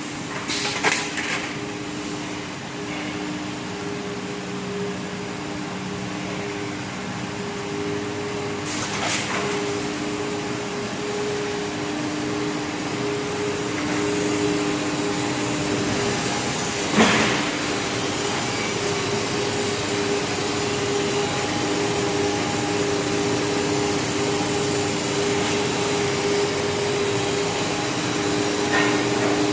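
ABS/HIPS sheet extrusion line running: a steady machinery hum and hiss with two steady droning tones, broken by a few short sharp knocks, about a second in, near nine seconds and near seventeen seconds.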